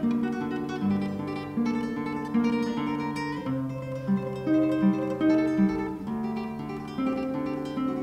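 Solo classical guitar playing a tremolo passage: rapid repeated plucked treble notes over a slower line of bass notes.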